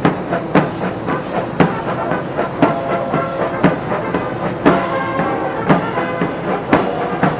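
Military brass band playing a march, with a bass drum and cymbal striking about once a second.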